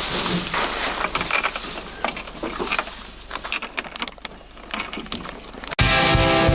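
Irregular small clicks and clinks with rustling, like gear being handled. About six seconds in, it cuts suddenly to loud rock music with electric guitar.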